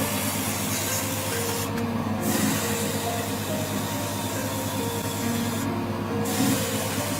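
High-temperature steam cleaner's spray gun jetting steam and water onto an air conditioner, a steady hiss over the machine's running hum. The hiss cuts out briefly twice, about two seconds in and about six seconds in, as the spray is paused.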